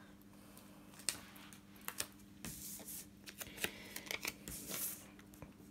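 Paper sticker sheet and planner pages being handled: soft rustling and small ticks as a sticker is peeled from its backing. The rustling is busiest from about two and a half to five seconds in.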